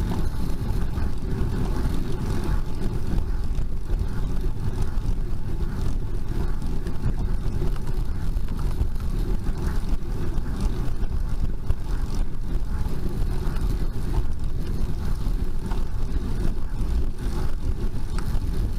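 Steady low rumble of wind and road noise on a bicycle-mounted camera's microphone during a slow, steep climb.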